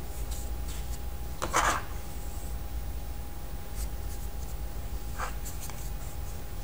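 Light handling of plastic Play-Doh tools and dough on a tabletop: a short scrape about a second and a half in and a lighter one near the end, with a few faint ticks, over a steady low hum.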